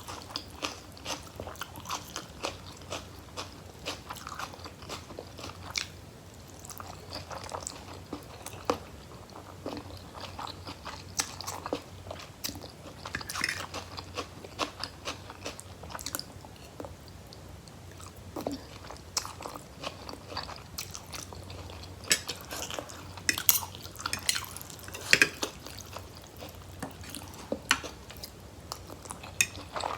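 A person chewing and biting food close to the microphone: a steady run of wet mouth clicks with crisp crunches now and then, as of fresh raw vegetables eaten with rice noodles and curry.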